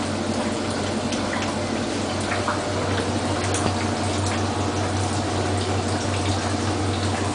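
Bosch washing machine running with a full load, water sloshing and trickling in the drum over a steady low hum.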